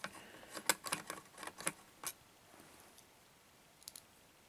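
Small metallic clicks and taps of a screwdriver on the tiny screws of a laptop's memory door, a quick cluster in the first two seconds, then two faint clicks near the end.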